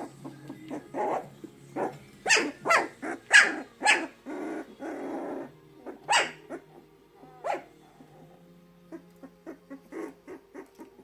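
Young puppies yelping: a quick run of short, sharp yelps about two seconds in, then a longer rough, growl-like sound, and two more single yelps later on.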